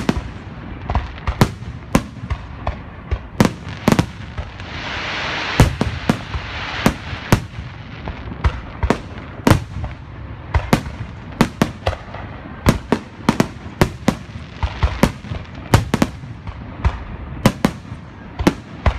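Aerial fireworks bursting in a continuous barrage, sharp bangs coming about one to two a second, with a stretch of loud hiss about five seconds in.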